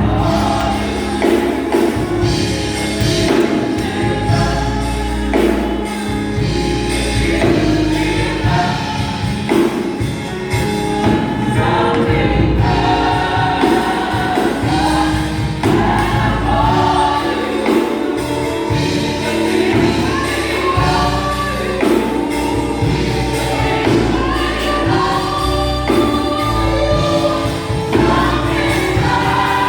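Gospel choir singing with instrumental accompaniment, a steady low bass under the voices.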